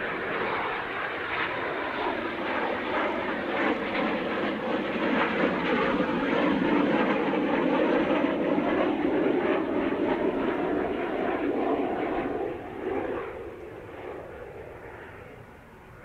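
Kawasaki T-4 jet trainer's twin turbofan engines on landing approach with the landing gear down. The jet noise, with a whine that slowly bends in pitch, swells to its loudest around the middle and fades away over the last few seconds as the jet reaches the runway.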